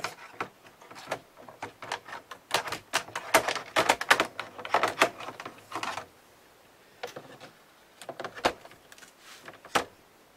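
Brother KH801 knitting machine carriage being handled upside down: a run of quick clicks and clatters, densest in the middle, then a few scattered clicks near the end.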